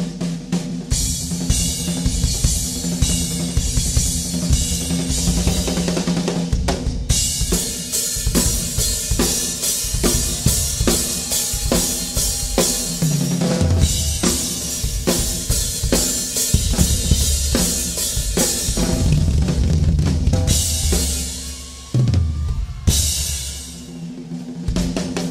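Two live rock drum kits played hard and fast in a drum battle: rapid kick drum, snare and tom fills with cymbal crashes. The drumming drops briefly near the end, then comes back with a loud hit.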